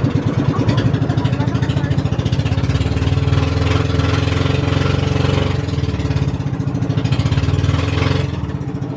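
Boat engine running with a rapid, even firing pulse. It gets louder and harsher twice in the middle, then eases off near the end.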